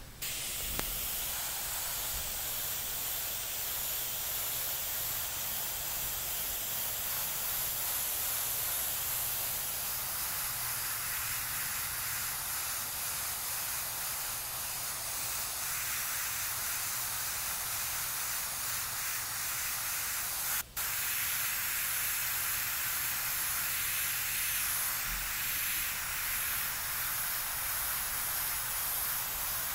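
Airbrush spraying paint in a steady hiss of compressed air as soft shadows are laid in, broken for an instant about two-thirds of the way through.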